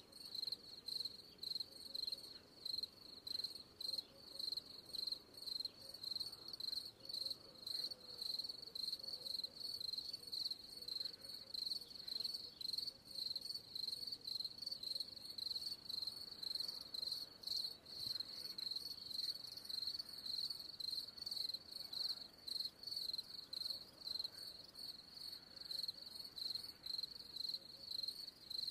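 Crickets chirping: a steady, even run of high chirps, two or three a second.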